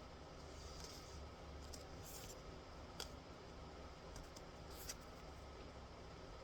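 Faint room tone with a few soft clicks and light rustles of tarot cards being handled on a table.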